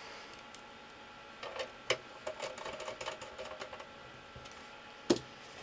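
Screws being driven into the metal case of a network switch with a screwdriver: a run of small clicks and taps from about a second and a half in, then a single sharp click near the end.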